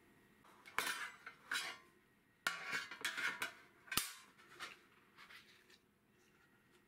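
A square metal cake pan being handled and set down on a countertop: a run of clattering knocks and scrapes, the sharpest knock about four seconds in.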